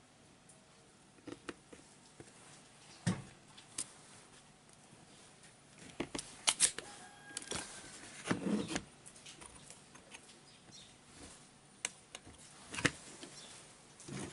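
Scattered sharp clicks and taps of small tools working on a switching power-supply circuit board while its trimmer potentiometer is being removed, with a short rustle about eight seconds in.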